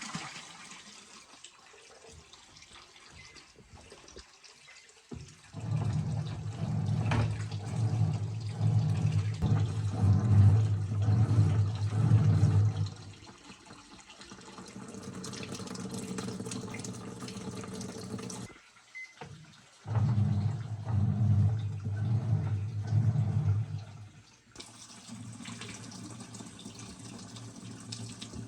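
Washing machine running with water flowing into it, with a motor hum that comes on about five seconds in, stops around thirteen seconds, and comes on again for a few seconds about twenty seconds in.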